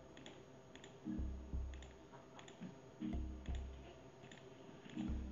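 Quiet background music with a low bass figure that recurs every second or two, with light clicks from typing on a tablet's on-screen keyboard.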